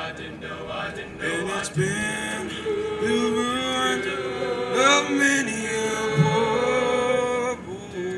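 All-male a cappella group singing sustained chords in close harmony, a lead voice at a microphone over the backing voices and a low bass line.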